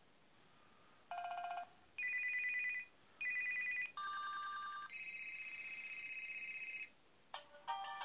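HTC ChaCha's loudspeaker playing its preloaded ringtones as previews, one after another: a short electronic ring, two alike buzzy rings, then two more electronic tones, the last one longer, each starting and stopping abruptly. Near the end a melodic ringtone with changing notes starts.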